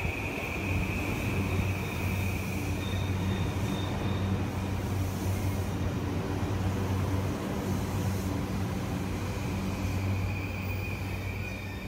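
Electric commuter train pulling into a station and slowing. A steady low hum and rolling noise run under a high whine that fades early on, and the sound eases off near the end as the train draws to a stop.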